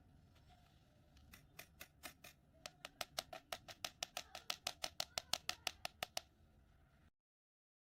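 A blade cutting through kinetic sand in a run of quick, crisp slices. The slices come sparsely at first, then about five a second, and stop a little after six seconds in.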